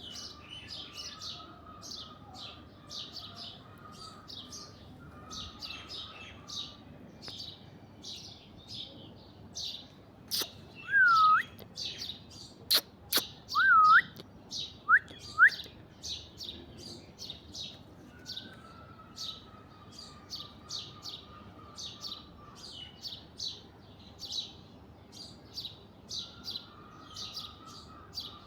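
Birds chirping in a rapid, continuous chatter. In the middle come a few sharp clicks and four loud, clear whistles that dip and swoop upward.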